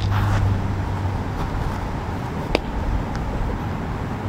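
Steady low rumble of distant road traffic outdoors, with a sharp knock at the start, another about two and a half seconds in, and a fainter one shortly after.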